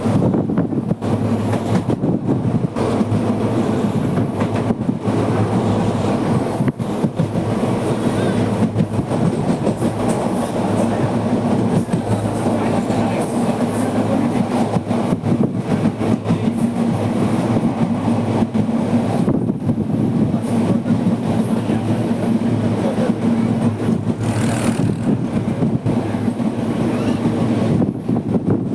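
Steady running noise of a moving passenger train heard from on board: wheels rolling on the rails and the carriage rumbling and rattling at speed.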